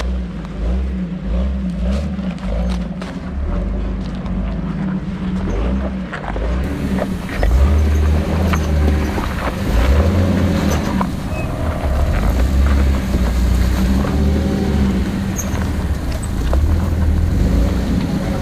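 Off-road vehicle engine running at low speed on a rocky trail, getting louder about seven seconds in, with scattered sharp clicks and knocks.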